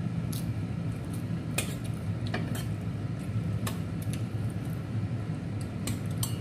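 Sounds of a meal at the table: about half a dozen short, sharp clicks and clinks of bowls and eating, scattered over a steady low hum.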